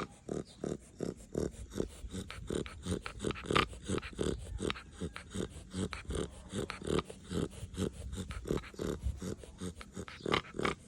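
Chow Chow dog snoring heavily in its sleep: a fast, even run of short snores, about three or four a second, with one louder snore about three and a half seconds in.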